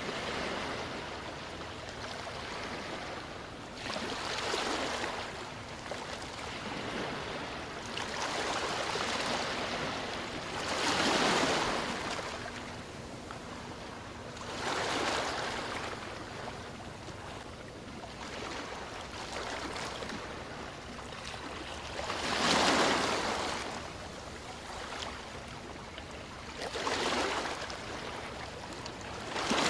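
Sea waves washing in: a rushing noise that swells and fades every few seconds over a steady hiss.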